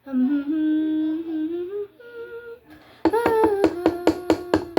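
A girl humming a tune in long, wavering 'da-da' notes. About three seconds in, quick, even tapping starts under a held note, several taps a second.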